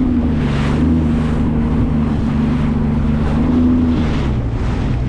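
Sea-Doo GTX 230 personal watercraft's three-cylinder engine running at a steady cruise, its pitch rising and dipping slightly, with wind and water rushing over the microphone.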